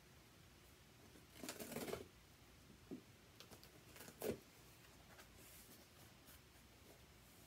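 Cardboard shipping box being opened: a short rustling scrape of packing tape being cut and pulled about a second and a half in, then a few light clicks and a knock as the box is handled and its flaps pulled open.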